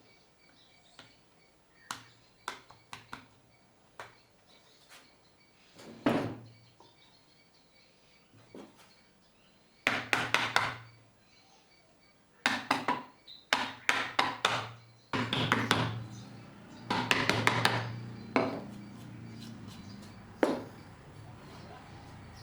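Hand tools striking pine wood: a series of sharp knocks and taps, some single and some in quick runs of four or five strikes.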